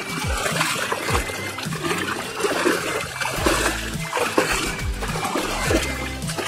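Water splashing and sloshing as a child churns up waves in a small inflatable paddling pool, with background music playing.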